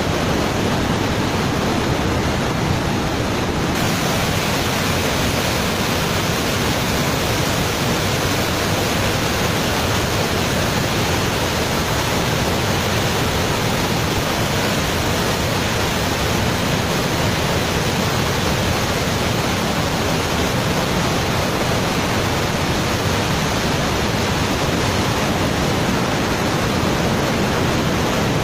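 A river in flood pouring over a waterfall: a loud, steady rush of muddy floodwater.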